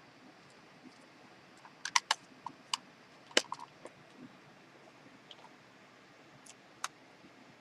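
Irregular sharp clicks and taps of small plastic parts and screws being handled as an NES controller is put back together, a quick cluster about two seconds in and the loudest click a little over three seconds in.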